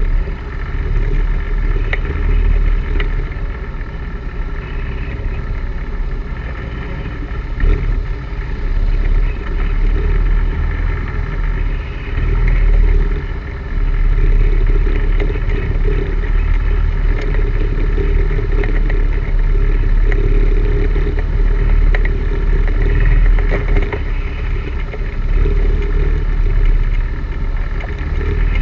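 ATV engine running steadily at low trail speed, with a few brief knocks and rattles as the machine rides over the rough, rocky, root-covered dirt trail.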